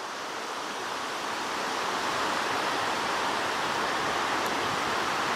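Steady rushing of water from Kakabeka Falls, out of sight, growing slightly louder over the first couple of seconds and then holding even.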